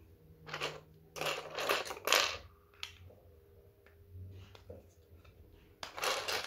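Hard plastic Playmobil toy pieces being handled and pressed together: a few short scraping, rattling bursts, the longest cluster in the first half and another near the end.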